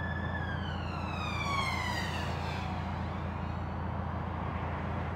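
An emergency-vehicle siren holds one pitch, then falls steadily in pitch over the first three seconds and fades. Underneath it runs the steady low drone of the narrowboat's engine, with a haze of traffic noise.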